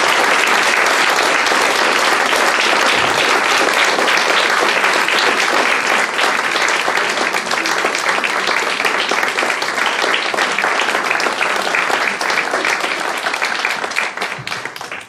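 Audience applauding steadily, thinning out and fading away near the end.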